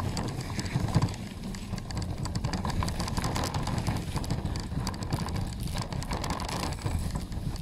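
Bicycle rolling over a rough, muddy gravel path: tyre noise and a dense run of rattles and clicks from the bike over the bumps, over a low rumble of wind on the microphone.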